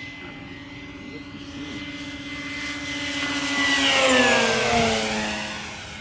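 Electric RC model warbird airplane making a low flyby: its motor and propeller whine builds steadily, is loudest about four seconds in, then drops in pitch as it passes and moves away.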